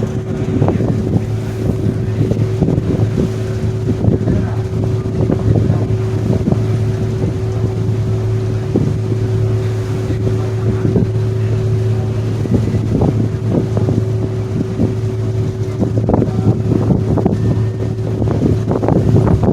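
Staten Island Ferry's engines droning with a steady low hum, with wind gusting on the microphone.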